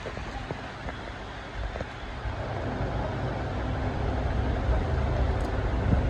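Busy street-market background: a steady low rumble of road traffic with general noise, growing a little louder about two seconds in.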